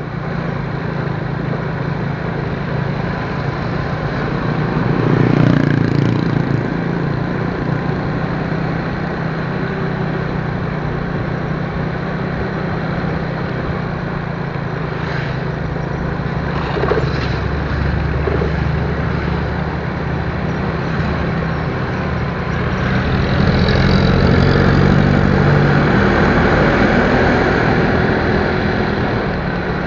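A vehicle on the move: steady engine hum under road and wind noise, swelling louder a few seconds in and again for several seconds near the end.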